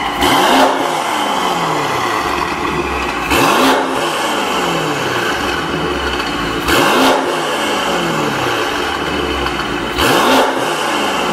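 Mercedes-AMG GT63 4-door's twin-turbo V8, with catless downpipes and a valved Fi exhaust, blipped from idle four times, about every three seconds. Each rev rises sharply and falls back to a steady idle.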